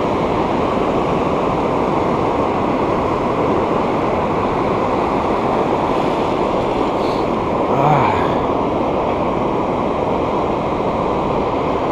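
Steady rush of ocean surf breaking on the beach, with wind noise on the microphone. About eight seconds in, a brief murmur from a man's voice.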